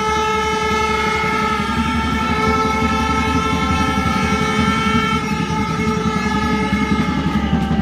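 A horn sounding one long, loud, unbroken note that holds a steady pitch, over a low rumble.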